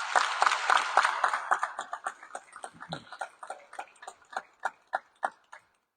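Audience applauding: dense clapping at first that thins out to a few scattered single claps and dies away near the end.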